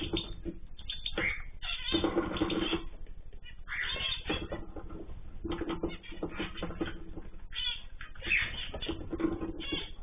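An aviary of cockatiels, zebra finches and canaries calling and chattering over one another: short, pitched calls repeated throughout, many overlapping.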